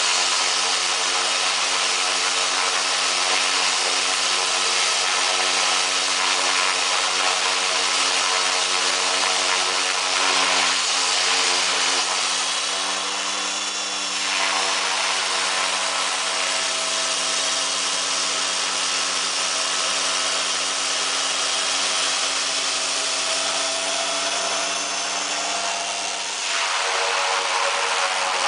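Turboprop engine of a converted Cessna 195 running at low power on the ground: a steady high turbine whine and hiss over the propeller's hum. The tone changes near the end as the aircraft starts to move.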